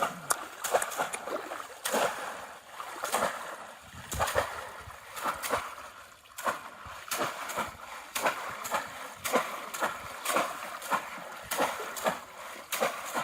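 Water splashing and sloshing over and over, in irregular sharp splashes about one or two a second, as people wade and grope by hand for fish in shallow water.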